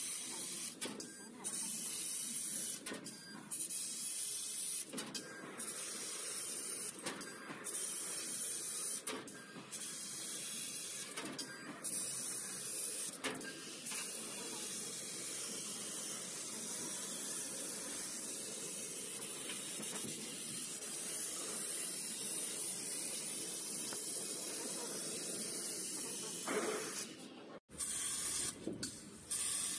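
3015 fiber laser cutting machine cutting 3 mm mild steel sheet: a steady hiss of assist gas from the cutting head's nozzle. The hiss breaks off briefly every second or two as the head moves between cut-outs, then runs unbroken for about twelve seconds. Near the end there is a sudden short silence, after which the stop-start hiss resumes.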